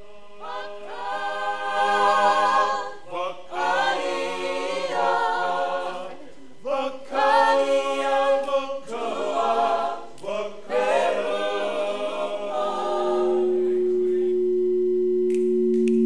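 A small group of voices singing unaccompanied, in several phrases with short breaks. About three-quarters of the way through, the singing gives way to a steady sustained tone that swells toward the end.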